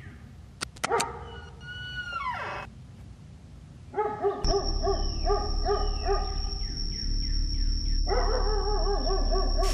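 A few latch clicks and a drawn-out, falling squeal as the front door opens, then dogs barking rapidly and continuously, several barks a second. Under the barking there is a steady low rumble and a thin high whine.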